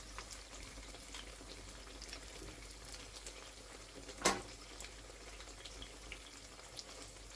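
Batter-coated papadams deep-frying in oil on a low flame: a steady soft sizzle with fine crackles. A single sharp knock sounds about four seconds in.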